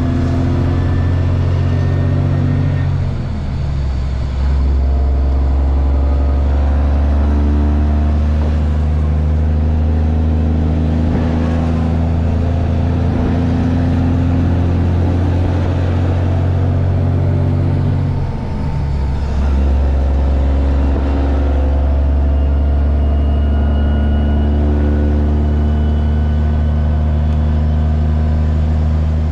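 Inside the cab of a 2000 Freightliner FLD 112 semi at highway speed: the Cummins ISM inline-six diesel drones steadily under road and tyre noise. Twice, about three seconds in and about eighteen seconds in, the engine note briefly dips and shifts in pitch.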